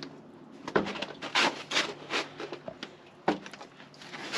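RV skirting fabric being handled and fitted: irregular rubbing and rustling, with a couple of sharp clicks as snap buttons are pushed onto their studs.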